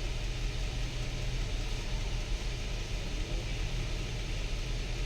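Nissan Patrol V6 engine idling steadily while misfiring on cylinder 2 of each bank, as the scanner reports.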